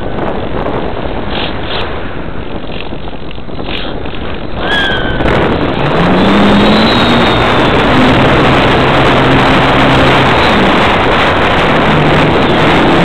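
Air rushing past a camera mounted under a radio-controlled model airplane in flight, together with the plane's motor and propeller. About five seconds in, it grows louder and a low hum comes in that shifts in pitch as the throttle changes.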